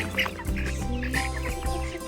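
Background music with steady held notes and a bass line, with short calls from farmyard poultry scattered over it.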